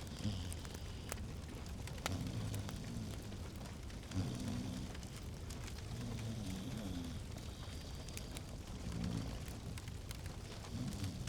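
Wood fire crackling in a fireplace, with scattered sharp pops over a low rumble.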